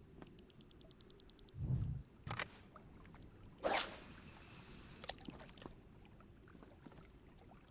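Fishing rod and reel being handled for a cast: a quick run of about ten sharp ticks a second, a low thump, a click, then a sudden hiss lasting about a second and a half.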